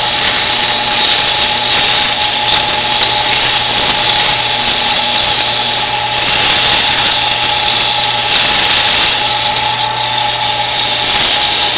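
Benchtop drill press running steadily with a constant motor hum, while 100-grit sandpaper is held against a piece of flagpole spinning in its chuck, adding an even hiss as it smooths out marks in the metal.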